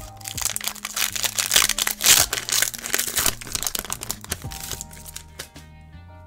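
Foil wrapper of a Pokémon TCG booster pack crinkling as it is handled and torn open, loudest about two seconds in and stopping after about four seconds. Lofi background music plays underneath.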